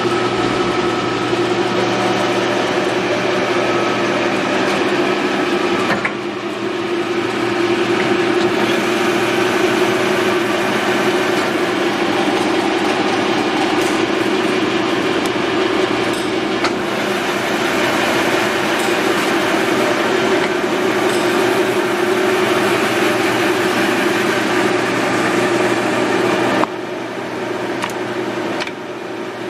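Large 12-speed geared-head engine lathe with a 7.5 kW motor, running with a steady mechanical hum and gear whir. The sound dips briefly about six seconds in and drops to a quieter level near the end.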